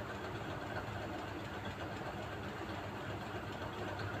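Faint steady low hum with an even background hiss.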